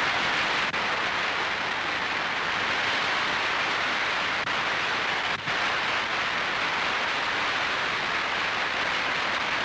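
Dense, steady applause from a large theatre audience at the end of a song, heard on an old film soundtrack.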